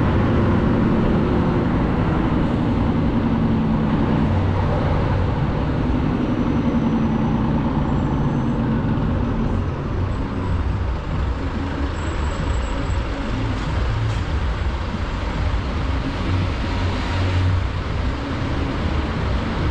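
Scania heavy truck's diesel engine in the cab, running down as the truck slows to a stop, then idling steadily from about halfway through.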